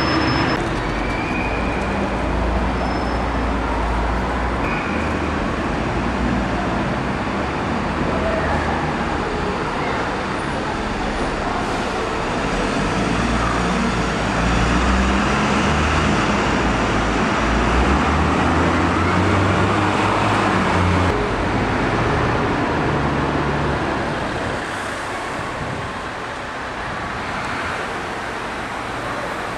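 Diesel bus engines running as buses move slowly through a covered bus station under a concrete roof, a steady low engine sound with traffic noise that changes abruptly twice.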